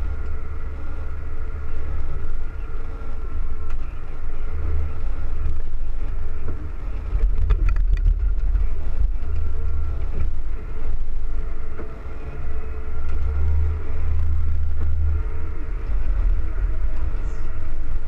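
Steady low drone of a John Deere 9460 RT tractor running under load, heard inside its closed cab, with a faint steady whine above it. A few sharp clicks come about halfway through.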